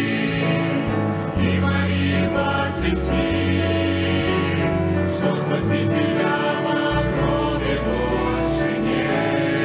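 A choir singing with instrumental accompaniment over a sustained deep bass line.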